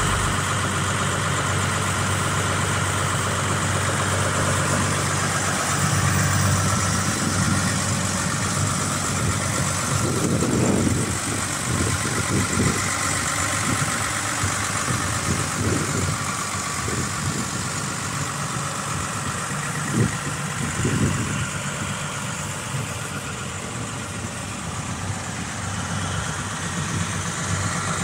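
New Holland TM140 tractor's six-cylinder diesel engine idling steadily, with a few low thumps in the middle, the sharpest about twenty seconds in.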